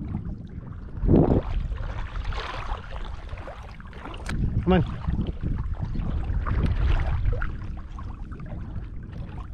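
Shallow marsh water sloshing and splashing, with wind rumbling on the microphone. There is a loud splash about a second in and a short pitched sound about halfway through.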